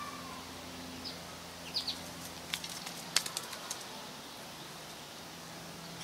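Freshly caught trout flapping and splashing at the water's edge while being unhooked: a quick cluster of wet slaps between about two and four seconds in.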